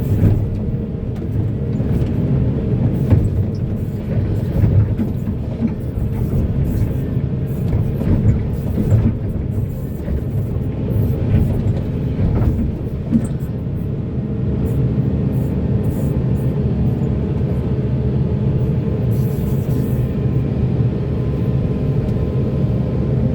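Heavy diesel mining machinery running under load, a steady low rumble with several sharp knocks in the first half.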